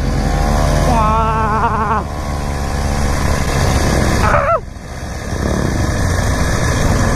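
Mini moto's small engine running steadily as the bike rolls along, the note falling away and dropping in loudness about four and a half seconds in before picking up again.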